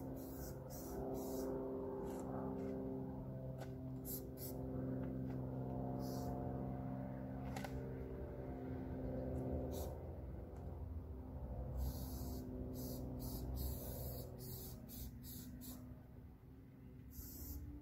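Aerosol spray paint cans hissing in short bursts as letters are sprayed: a few separate hisses, then a quick run of many short bursts in the last third. A steady low hum of held tones lies underneath.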